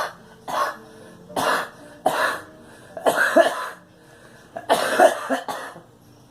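A girl coughing repeatedly: five bouts of coughs about a second apart, the last and longest about five seconds in.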